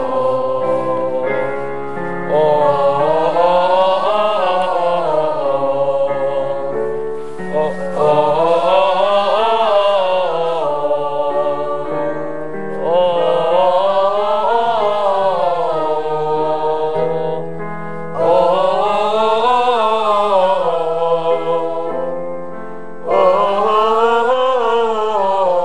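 A group of singers doing a vocal warm-up, singing five phrases that each run up and back down a scale, with held chord tones sounding between the phrases.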